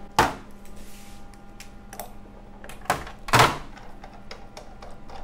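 Metal clanks and knocks as the stone-wheel assembly of a chocolate stone grinder (melangeur) is worked apart with an adjustable wrench on a steel tray. Three sharp knocks, just after the start, near three seconds and the loudest just after it, with lighter clicks between.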